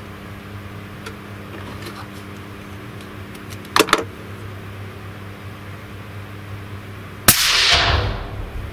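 A single suppressed .308 Win. rifle shot from a Blaser R8 fitted with a fouled, uncleaned Hausken JD 224 XTRM suppressor, about seven seconds in: a sharp crack that dies away over about a second. A steady low hum runs underneath, and there is a short sound about four seconds in.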